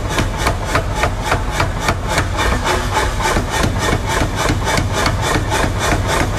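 Mechanical power hammer striking a red-hot steel blade in rapid, evenly spaced blows, about five a second, over the low hum of its drive.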